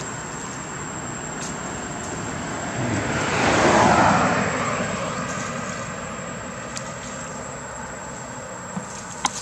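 An aircraft passing overhead: a rushing engine noise that swells to its loudest about four seconds in, then fades away.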